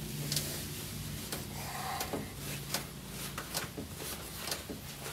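Microfiber cloth wiping and buffing a glass panel: soft rubbing with a scattered run of small clicks and knocks, and a brief squeak about two seconds in.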